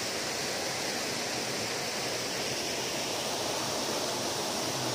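Steady rush of water flowing over rocks in a forest stream.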